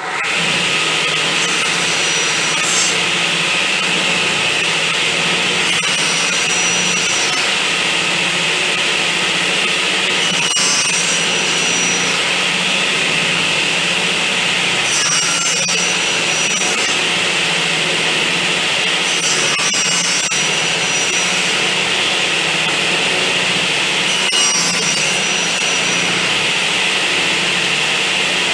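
Bench-mounted circular saw (table saw) running steadily while a board held on end is pushed across the blade in repeated passes, cutting the slot of a halved joint. The sound brightens each time the blade bites into the wood, about every four to five seconds.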